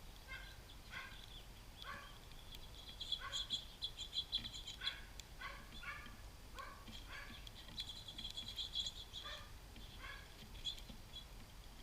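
Small songbirds calling: a run of short chirps, roughly two a second, with spells of fast, high twittering about three seconds in and again around eight seconds.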